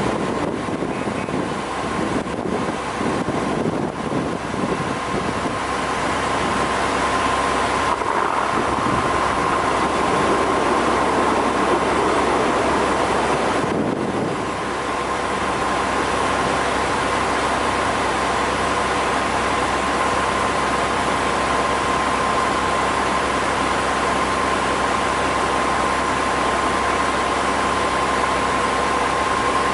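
Steady drone of heavy diesel mining machinery working in the pit, with a steady high tone through it. It swells slightly about eight seconds in and dips briefly about fourteen seconds in.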